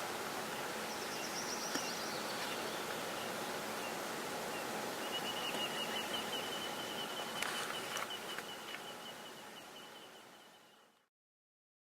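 Steady rush of the flooding Glomma river, with a bird trilling: a short high trill near the start, then a long rapid run of high notes from about five seconds in. The sound fades out shortly before the end.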